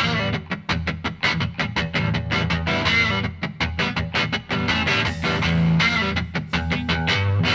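Background music: a fast, rhythmic plucked electric guitar over a steady bass line.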